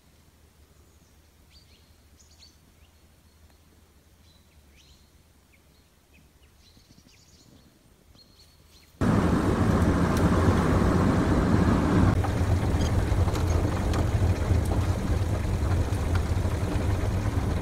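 A few faint bird chirps over near quiet, then about halfway through a sudden switch to loud, steady engine and road noise heard inside an old car driving on a dirt road.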